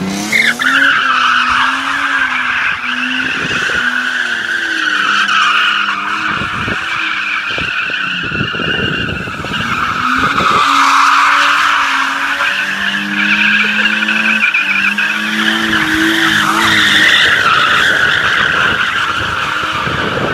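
BMW E36 drifting: a long, continuous tyre squeal, with the engine note wavering and climbing underneath as the throttle is worked.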